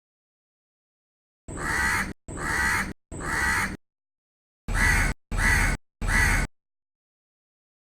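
Crow cawing: six caws in two sets of three, the second set louder and quicker.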